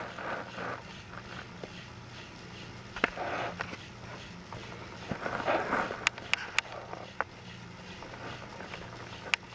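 Battery-powered TrackMaster motorized toy trains whirring along plastic track, with a steady low hum and a few sharp clicks, three in quick succession about six seconds in.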